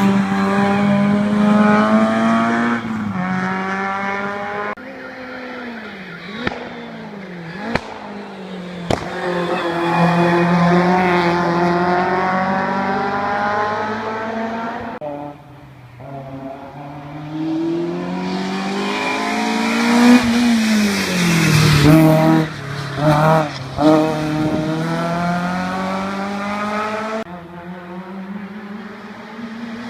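Small four-cylinder Peugeot and Citroën hillclimb race cars driven flat out, several in turn: engines revving high, the pitch climbing and dropping as they change up through the gears, with a few sharp exhaust cracks and some tyre squeal.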